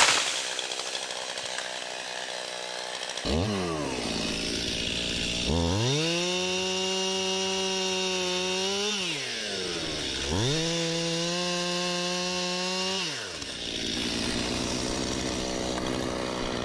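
Stihl MS291 two-stroke chainsaw idling, then revved up twice and held at high speed for about three seconds each time before dropping back to idle, bucking dead trees into firewood.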